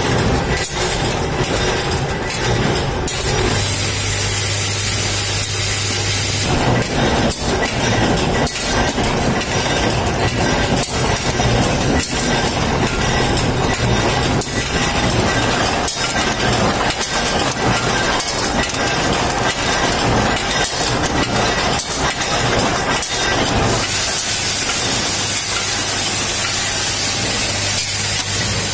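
Bolt-making machinery in a fastener factory running, with a dense, continuous clatter of rapid metallic knocks. A steady low hum and a high hiss join in for a few seconds about three seconds in, and again near the end.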